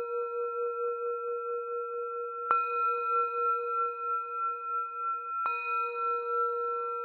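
A singing bowl (Klangschale) ringing, struck again about two and a half seconds in and once more near the end, each new strike landing while the last one is still sounding. Its low tone wavers in a slow, pulsing beat under a few higher ringing tones.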